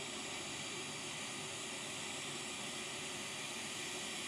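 Hot air rework station blowing a steady hiss of hot air onto a TPS65988DH chip while the chip is reflowed onto a laptop motherboard.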